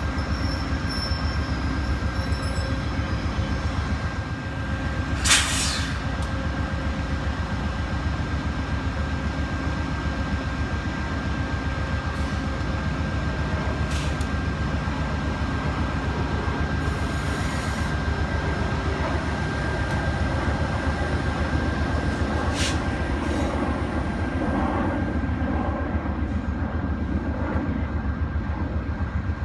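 VIA Rail Canada GE P42DC diesel locomotive idling steadily at a standstill: a constant low rumble with a thin high whine over it. A single sharp knock comes about five seconds in.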